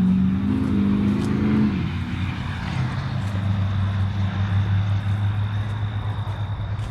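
Diesel engine running hard, its pitch stepping up and then dropping off about two seconds in, settling into a steady lower drone.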